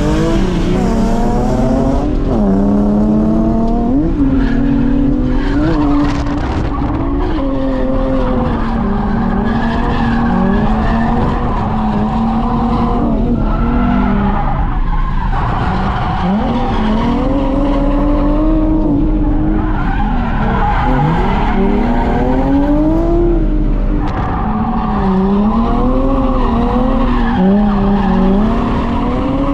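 Drift cars sliding with their engines revving hard, the pitch rising and falling as the throttle is worked, over sustained tyre squeal.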